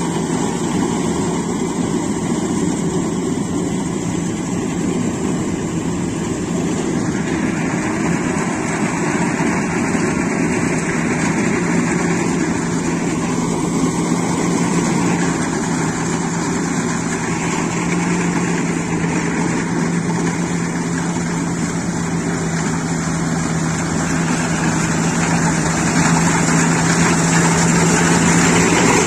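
Iseki rice combine harvester running steadily while cutting standing rice, its engine giving a continuous even drone. It gets louder near the end as the machine comes close.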